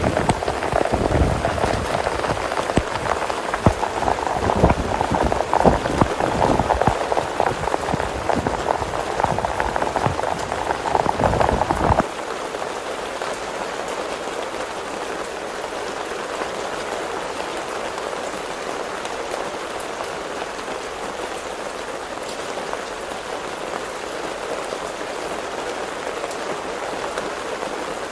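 Heavy rain falling, loud and uneven with irregular low thuds. About twelve seconds in it cuts abruptly to a quieter, steady rain hiss.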